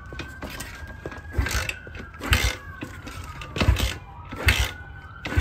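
RFZ Z40 140 cc single-cylinder dirt bike being kick-started cold on choke, the engine giving a series of sharp pops without catching. The rider calls it backfiring and takes it for a sign that something is out of time.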